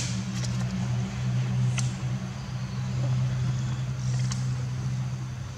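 An engine running steadily at idle, a low even hum, with a few faint clicks about two and four seconds in.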